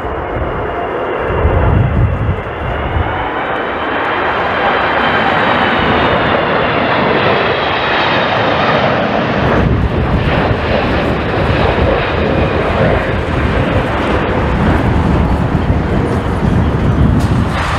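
Jet airliner's engines passing close on landing approach, a high fan whine over a heavy rumble; the whine rises slightly then fades about nine seconds in, leaving a rougher rushing noise. Gusty wind buffets the microphone.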